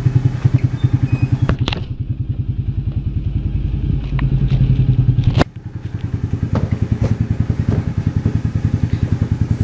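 Polaris Ranger utility vehicle's engine running at idle, an even rapid pulsing, with a few knocks and clatters over it. The engine gets quieter about five seconds in.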